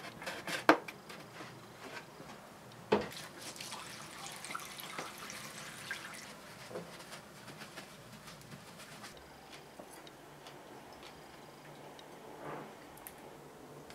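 Bleach splashing and dripping into a ceramic bathroom sink, with a sharp knock about three seconds in, then a sponge scrubbing the basin.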